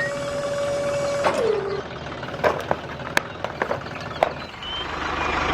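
A small motor whines at a steady pitch, then cuts out a little over a second in, its pitch falling as it spins down. Several sharp clicks and knocks follow, and a steady noisy hum rises near the end.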